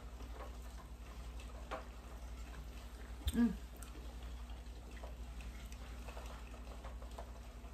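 A person eating hot chicken wings: faint chewing and mouth clicks, with one brief louder sound a little over three seconds in.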